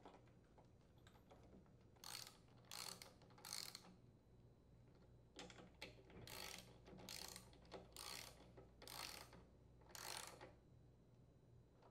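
Faint clicking of a socket ratchet in about nine short runs of back-strokes, as the 10mm mounting bolts of the air filter housing and carburetor are tightened.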